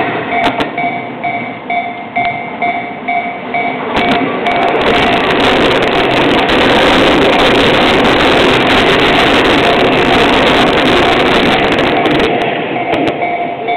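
Japanese railway level-crossing warning bell ringing its rapid, repeated 'kan-kan-kan' tone. About four seconds in, a passing train's loud, steady rumble all but covers the bell. The bell comes clear again near the end.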